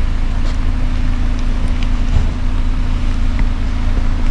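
A steady low rumble with a constant hum, as from an engine or machine running, and a few faint clicks.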